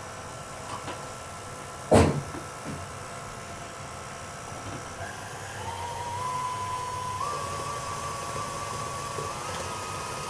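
A sharp clatter about two seconds in, then an electric stand mixer starting up about halfway through, beating spätzle batter: a motor whine that glides up and then steps up in pitch twice as the speed is raised.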